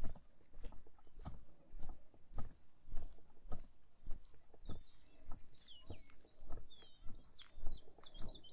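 Walking footsteps at an even pace, nearly two steps a second, with a small bird chirping and trilling in quick high notes from about halfway through.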